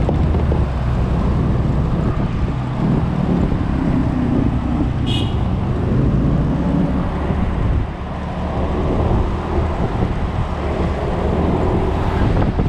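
Automatic scooter being ridden in road traffic: steady engine and road noise, with a short high-pitched beep about five seconds in.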